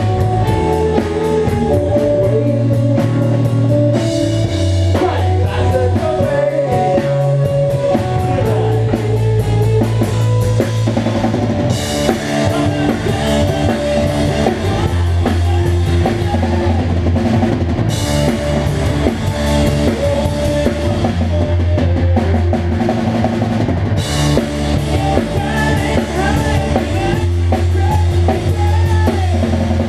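Rock band playing live: electric bass loud and close, electric guitar and drum kit. The drums build up after a few seconds, with crash cymbals hitting about every six seconds from roughly twelve seconds in.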